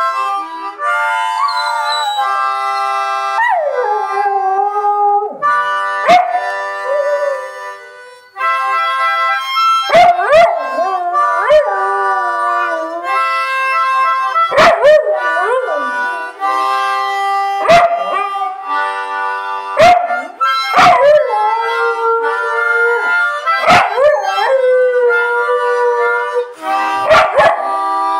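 A harmonica playing held chords while a dog howls along, its howls sliding up and down in pitch. One long falling howl comes a few seconds in, then short howls follow every few seconds from about ten seconds on. The harmonica pauses briefly around eight seconds.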